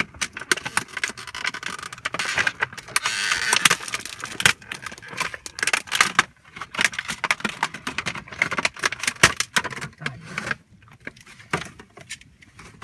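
Plastic toy parts and packaging being handled: irregular clicks and rattles, with a stretch of crinkling about two to four seconds in, quieter near the end.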